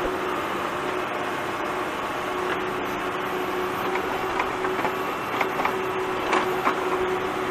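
Diesel engine of a JCB 3DX backhoe loader running steadily under hydraulic load as the backhoe digs, with scattered sharp knocks from the bucket and its linkage, mostly in the second half.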